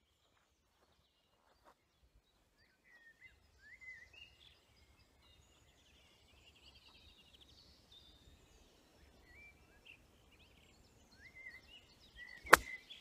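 A golf club strikes the ball with one sharp crack near the end, by far the loudest sound. Before it, birds chirp and sing faintly.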